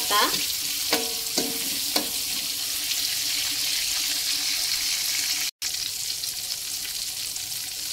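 Tomato wedges sizzling steadily as they fry in hot oil in a wok. A few short scrapes of a metal spatula against the wok come in the first two seconds as the tomatoes are turned, and the sound drops out for an instant about five and a half seconds in.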